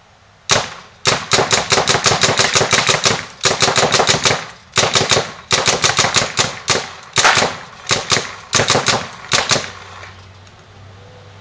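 Piranha GTI semi-automatic CO2 paintball gun firing in rapid strings of shots, several a second, with short breaks between strings; the firing stops a little before the end. The paint feeds cleanly without any balls chopping.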